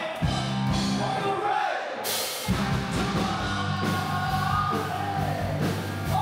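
Live rock band playing: a singer over electric guitars, bass and drums, with cymbals coming in about two seconds in.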